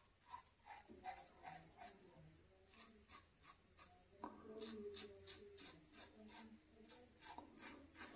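Faint short scraping strokes of an adjustable double-edge safety razor cutting stubble under the nose and on the upper lip, a few strokes a second. A faint steady tone sounds for about a second and a half starting about four seconds in.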